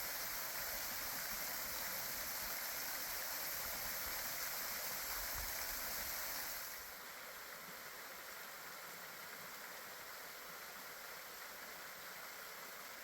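Thin flow of water pouring and splashing at a nearly dried-up waterfall: a steady rushing hiss that drops to a quieter level about seven seconds in.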